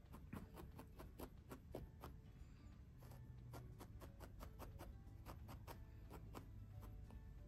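38-gauge star felting needle stabbing repeatedly into wool over a wool felting pad: faint quick pokes, about four or five a second, with a brief lull partway through.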